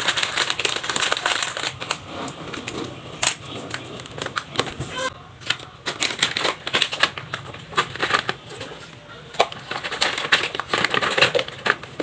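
Plastic coffee sachets and snack packets crinkling as they are handled and sorted into a plastic basket, then scattered clicks and knocks as items and the basket are set down.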